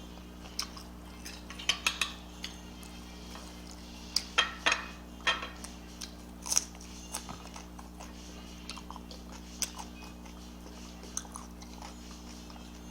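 Eating at close range: scattered clinks and clicks against a plate and chewing, with the loudest clusters about two and four to five seconds in. A steady low hum lies under it all.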